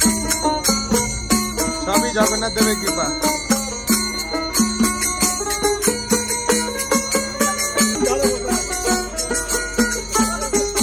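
Live devotional kirtan: small hand cymbals clinking in a steady rhythm, with a plucked stringed instrument and voices singing.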